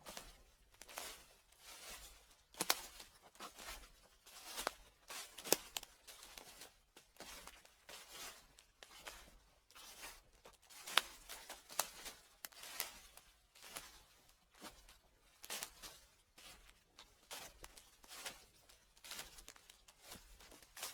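Footsteps crunching through fallen leaves at a slow walking pace, about one step a second, each step a crackling rustle.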